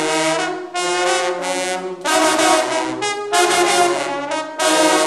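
A section of marching baritone horns playing a loud fanfare in full chords, in short phrases separated by brief breaks, ending on a held chord that cuts off near the end and leaves a ringing room echo.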